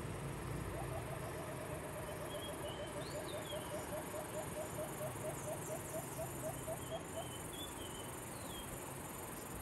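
Forest wildlife calling: a long, even run of short, slightly upward-flicking mid-pitched notes, about four a second for some six seconds, with scattered higher bird chirps over a low steady rumble.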